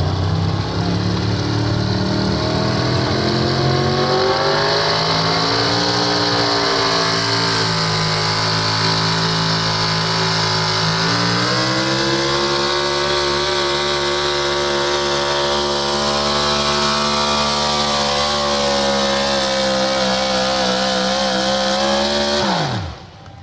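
Pro Stock 4x4 pulling truck's engine at full throttle through a pull. The revs climb over the first several seconds, sag about ten seconds in, climb again and hold high. Near the end the engine is shut off and its pitch drops away quickly.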